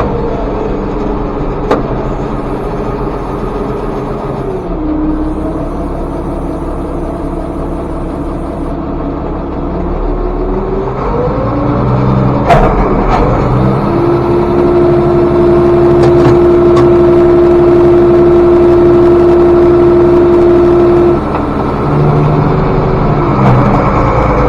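Tractor engine running under way, its speed dropping and picking up again. It holds steady at higher revs for several seconds, then eases off and rises again near the end. A sharp click sounds twice.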